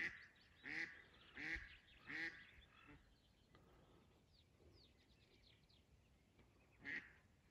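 Live decoy hen duck quacking to call drakes: four loud quacks about two-thirds of a second apart, a pause, then one more quack near the end. Faint high chirps are heard during the pause.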